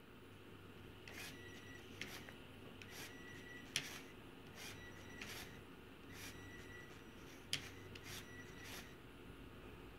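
Lego Technic front steering mechanism being turned back and forth: irregular sharp plastic clicks about once a second, some followed by a brief squeaky rub.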